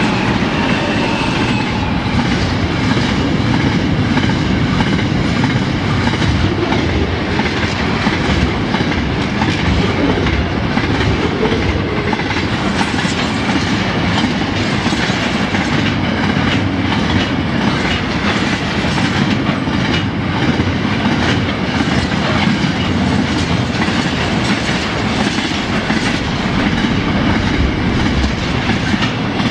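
Long diesel-hauled intermodal freight train rolling past at speed: a loud, steady rumble of steel wheels on rail, with a continual clickety-clack as wagon wheels cross rail joints. The last locomotives give way to container and flat wagons.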